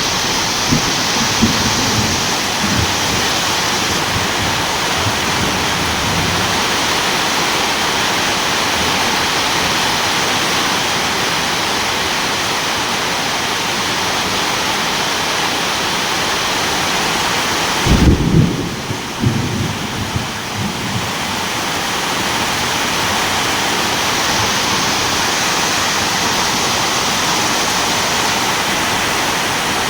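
Steady, heavy rain hissing, with low rumbles of thunder in the first few seconds and a stronger rumble about eighteen seconds in, as the rain briefly thins.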